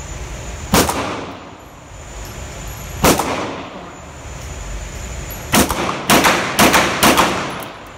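Six pistol shots from a Kimber Desert Warrior .45 ACP 1911, echoing in an indoor range: one about a second in, another around three seconds, then four quick shots about half a second apart near the end.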